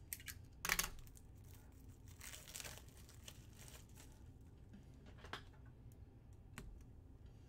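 Quiet crinkling and rustling of trading-card packaging being handled, with a sharper crinkle about a second in, a softer longer one a couple of seconds later, and a few light clicks.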